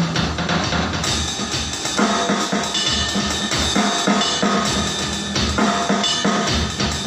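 Drum kit being played in a sound check: a busy run of close-spaced drum hits with cymbals washing continuously over them.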